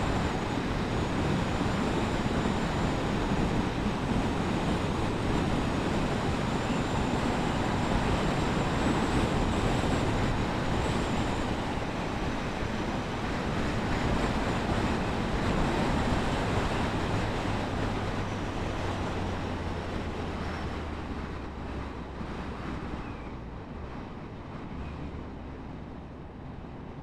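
Suzuki GSF1250 Bandit's inline-four engine running under steady throttle, with wind and road rush while riding along. Over the last several seconds the sound eases and gets quieter as the bike slows.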